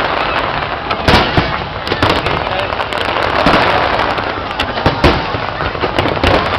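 A fireworks display going off in quick succession: a dense crackle with many sharp bangs, the loudest about a second in and again about five seconds in.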